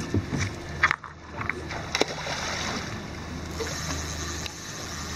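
River current rushing and lapping against the side of a boat, over a steady low hum, with a few short sharp knocks about one and two seconds in.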